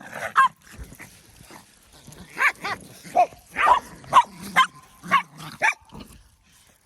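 Dogs barking in a run of short, high-pitched yips, a couple at the start and most in a quick series between about two and six seconds in.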